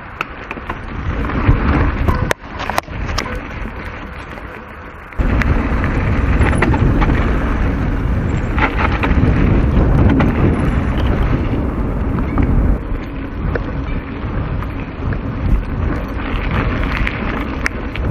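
Riding noise from a mountain bike on dirt singletrack as picked up by an action camera's microphone: wind buffeting the mic and tyres rumbling over the trail, with scattered clicks and rattles from the bike. The rumble jumps much louder about five seconds in and stays loud.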